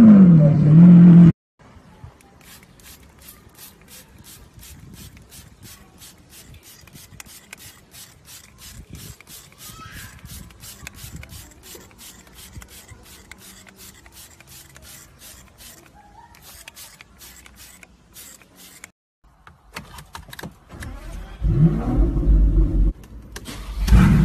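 A car engine revving, its pitch falling, cuts off suddenly about a second in. A long quiet stretch follows with a faint, regular ticking of about three ticks a second. Near the end a car engine runs loudly again.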